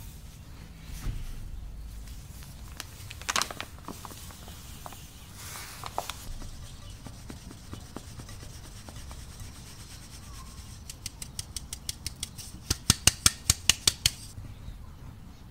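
Round metal drum sieve being shaken and knocked by hand to sift flour into a bowl: a fast run of sharp metallic taps, about six a second, soft at first and then loud, stopping suddenly near the end. A few scattered clinks and rustles of handling come before it.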